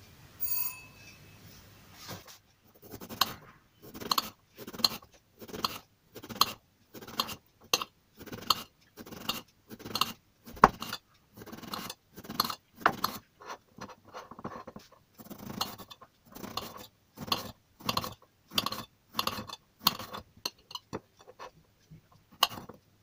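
Kitchen knife slicing an eggplant into thin rounds on a ceramic plate, each stroke ending in a short click of the blade against the plate, about two a second, starting a couple of seconds in.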